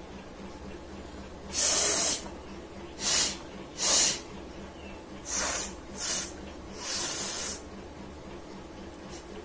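A person breathing sharply through the nose six times in quick succession, short airy hissing sniffs and snorts, as her nose is being tickled. The last one is longer than the others.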